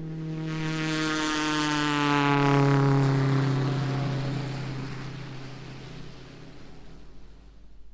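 Propeller aircraft engine passing by: the engine drone swells to a peak about three seconds in, then fades away as its pitch drops.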